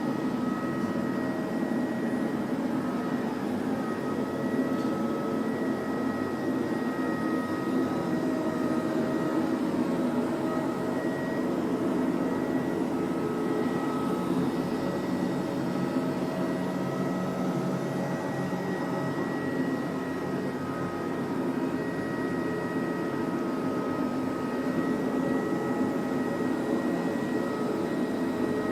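iClebo Omega robot vacuum running steadily, its motor noise carrying a steady two-tone whine.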